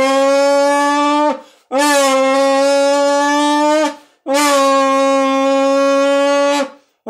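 A homemade soda-can noisemaker, a crushed can with three holes punched in its side, played by mouth to imitate a race car. It gives a steady, rich, horn-like tone in long blasts of about two seconds each, three of them with short gaps between, and the pitch sags at the end of each blast.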